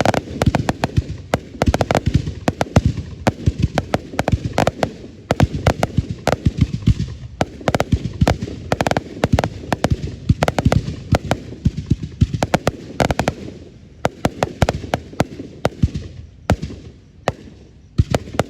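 Fireworks going off in rapid, overlapping bangs and crackles that thin out over the last few seconds.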